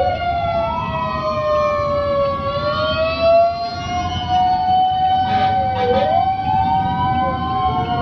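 Several fire truck and ambulance sirens wailing at once, their pitches gliding up and down out of step with each other, over the rumble of truck engines passing close by.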